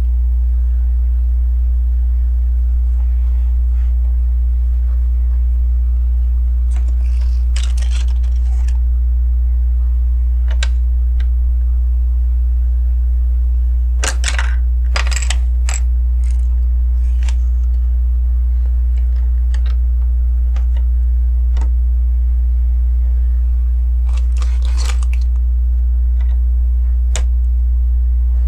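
Plastic LEGO bricks and plates clicking and rattling as pieces are picked through and pressed into place, in a few short clusters of clicks with single ticks between. A steady low electrical hum runs underneath.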